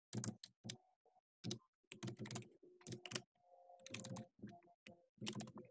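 Typing on a computer keyboard: irregular keystrokes in quick runs with short pauses.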